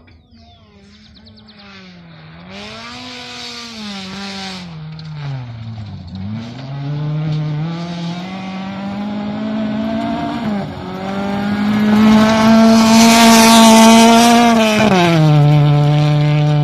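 Rally car at speed on a gravel stage, its engine revving up and dropping back through gear changes as it comes closer and grows louder. Loose gravel hisses under the tyres, loudest as the car passes. Near the end the engine note falls to a lower steady pitch.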